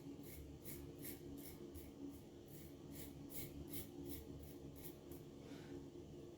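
Safety razor blade scraping through one day of stubble in short, quick strokes, about three a second, stopping about five seconds in. The razor is a vintage Gillette Black Tip double-edge razor with a Feather blade.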